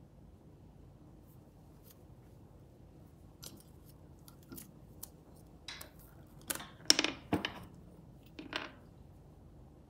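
Embroidery thread and a small spool handled by hand: a few short rustles and clicks, with a cluster of louder ones about two-thirds of the way through.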